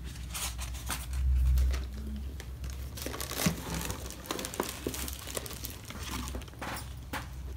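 Paper and plastic crinkling and rustling as paper crafts and a wrapped box are handled, with scattered small clicks. A dull low rumble swells briefly about a second in.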